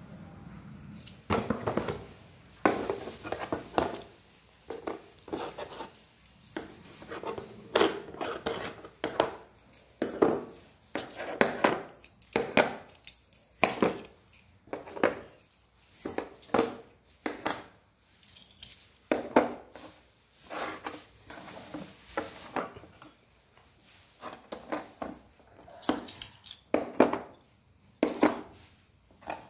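Stainless steel kitchen press parts being handled, giving repeated metal-on-metal clinks and clanks at an irregular pace, one to three a second.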